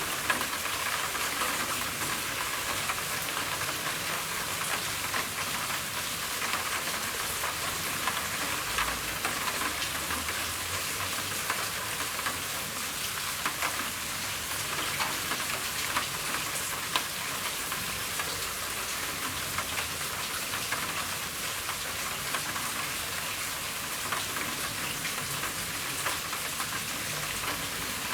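Rain falling steadily on a roof: an even hiss peppered with many small drop ticks.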